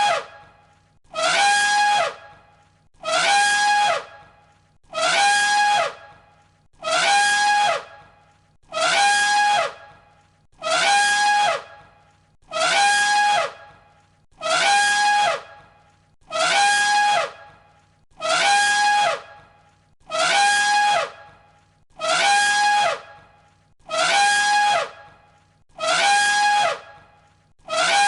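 An elephant trumpeting, the same short call repeated over and over about once every two seconds. Each call is a loud, brassy blast about a second long that slides down in pitch at the end.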